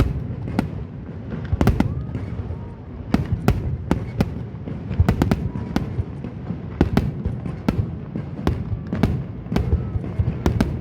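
Aerial fireworks bursting in rapid succession, many sharp bangs and cracks a second over a low rolling rumble.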